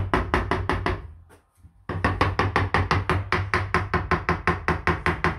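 Rapid, evenly spaced knocks, about six a second, tapping a tight-fitting kitchen piece home into place. The knocking breaks off for under a second a little after one second in, then resumes.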